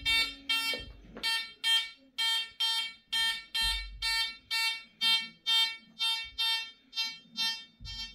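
Metal detector's target signal: a pitched beep repeated about twice a second, one beep each time a gold bracelet is swung past the search coil. The beeps grow weaker near the end as the bracelet is held farther from the coil.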